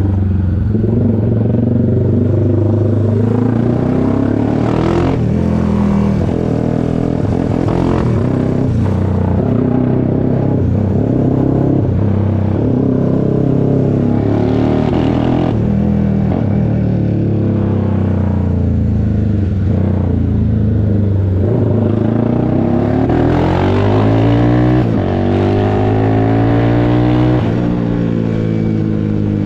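Honda CBX 250 Twister's single-cylinder four-stroke engine, bored to 79 mm, running loud through a tuned exhaust and revved repeatedly, its pitch rising and falling. Near the end it climbs for several seconds, then drops off sharply.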